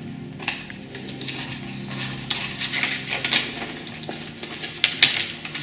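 A roll of brown kraft paper being unrolled and handled, with irregular rustling and crackling of the stiff paper.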